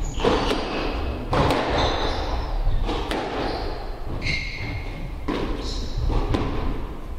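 Squash rally: the ball cracking off rackets and the walls in irregular sharp hits, with short high squeaks of court shoes on the wooden floor between them.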